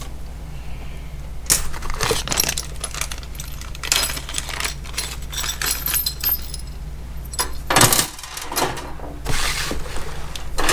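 Small metal mounting hardware (bolts, nuts, washers and brackets) clinking and rattling as it is handled, with a few louder rattles and rustles near the end.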